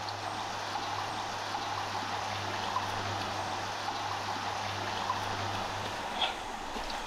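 A creek running steadily, an even rushing trickle of water, with a faint low hum underneath that stops about six seconds in.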